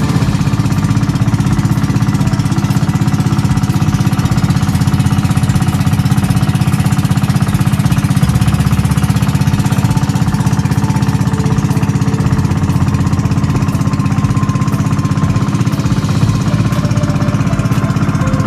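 Small boat engine running at a steady, fast, even chug, loud and close.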